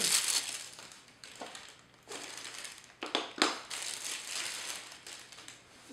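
Plastic packaging crinkling and rustling in irregular handfuls as a new camera battery and charger are unwrapped, with a few sharper crackles about three seconds in.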